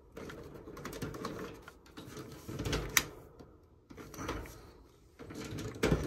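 Handling noise from a clamp meter being worked around heater wiring: irregular rustles and scattered clicks, with one sharp click about three seconds in.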